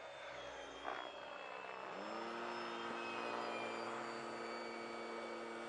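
Electric ducted fan of a radio-controlled F-16 model jet whining in flight. About two seconds in, the whine rises sharply in pitch and then holds steady; there is a short click about a second in.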